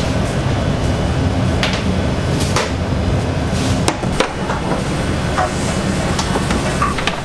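Steady machine rumble of bakery kitchen equipment, with several sharp knocks and clatter from work at the bench, the loudest a few seconds in.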